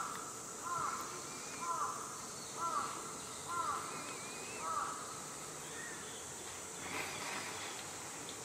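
A crow cawing six times at a steady pace of about one caw a second, the series ending about five seconds in. Fainter, higher bird chirps follow.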